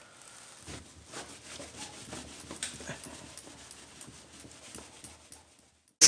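A rag wet with isopropyl alcohol rubbing over car window glass, a faint run of quick, irregular wiping strokes that scrub leftover tint glue off the glass.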